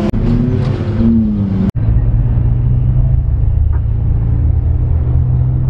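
Engine and road noise heard from inside a moving vehicle's cab. For the first second and a half the engine's pitch rises and falls as it pulls; after a sudden cut it settles into a steady low drone while cruising.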